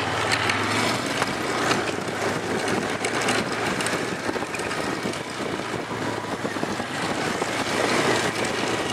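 ATV engine running steadily at trail speed, with the rough noise of the machine jostling over a dirt trail.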